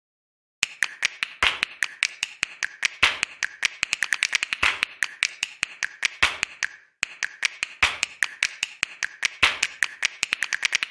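Percussive backing track of fast, sharp clicks and taps in a steady rhythm, with a heavier beat about every second and a half. It starts about half a second in and breaks off briefly about seven seconds in.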